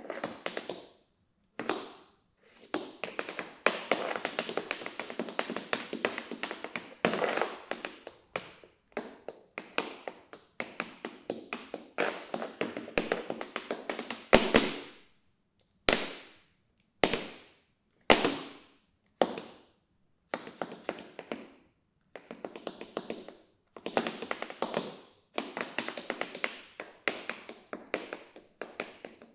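Tap shoes striking the floor in an unaccompanied tap dance improvisation: fast runs of taps broken by short pauses, with a few single loud, well-spaced strikes about halfway through.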